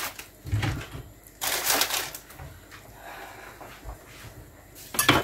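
Kitchen handling noises: a soft knock, a brief rustling clatter about a second and a half in, and a sharp clink near the end.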